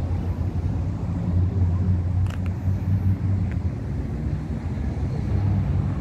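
Outdoor street ambience dominated by a steady low rumble like distant traffic or an idling engine, with a couple of faint clicks.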